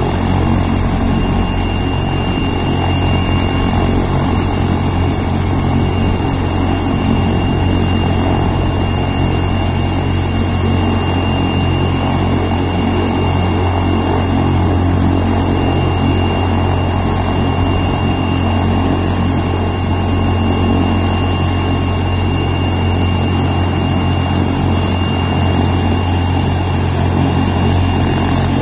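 AgustaWestland helicopter running on the ground with its main rotor turning: a steady, loud rotor and engine drone with a constant high turbine whine. Near the end a faint, higher whine begins to rise.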